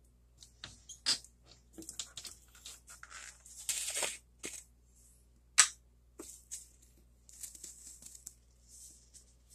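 Kitchen handling noises on a countertop: scattered light rustles, taps and scrapes, a short stretch of denser rustling about four seconds in, and one sharp click about five and a half seconds in as containers and a plastic measuring cup are handled.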